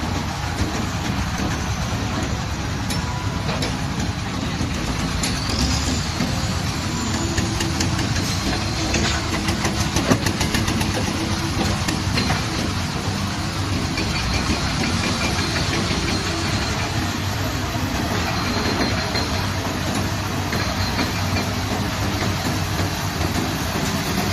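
Heavy construction machine's diesel engine running steadily, with scattered metal knocks and a few short high squeaks from the machine working; the loudest knock comes about ten seconds in.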